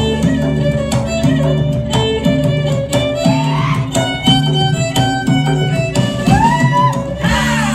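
Malay joget dance music, with a violin carrying a melody that slides between notes over a steady beat.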